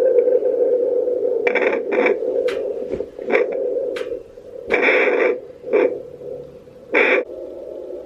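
Home fetal Doppler loudspeaker giving a steady static hum, then irregular scratchy rubbing bursts and a few clicks as the probe is slid over a gel-coated pregnant belly searching for the fetal heartbeat. No regular heartbeat rhythm comes through yet.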